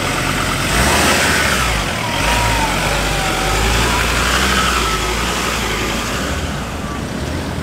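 Ford Ranger ute's engine revving up and down under load as it crawls over a rock ledge, with a faint whine that rises and falls with the revs.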